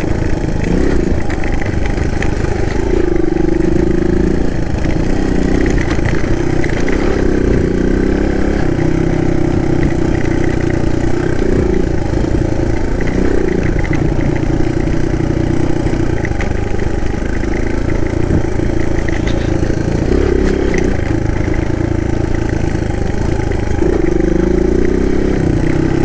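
Suzuki DR200's single-cylinder four-stroke engine running while the motorcycle is ridden, its note rising and falling every few seconds with throttle and gear changes.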